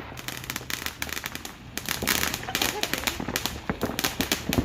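Fireworks crackling: many rapid sharp pops that grow denser about two seconds in, with a loud bang at the very end.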